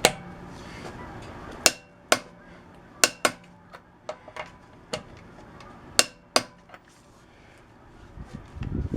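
Sharp metallic clicks of a click-type torque wrench set to 170 ft-lb, trying the wheel's lug nuts one after another, with a socket clinking on the nuts. The wrench clicks at its set torque while the nuts hold, a sign the lug nuts were overtightened.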